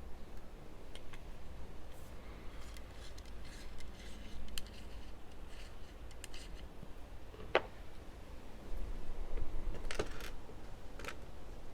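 Scattered light metallic clicks and taps of small measuring tools being handled on a workbench, the sharpest about halfway through and a few more near the end, over a low steady hum.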